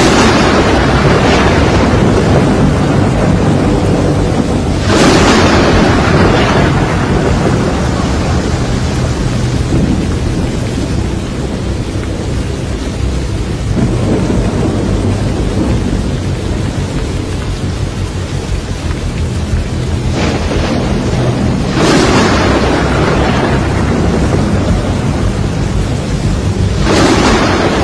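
Thunderstorm: steady heavy rain with several loud claps of thunder that break in suddenly and die away over a couple of seconds each.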